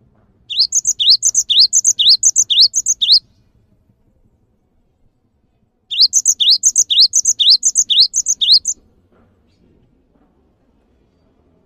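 Cinereous tit (gelatik batu) singing: two bouts of about three seconds each of a quickly repeated rising whistled phrase, with a pause of a few seconds between them.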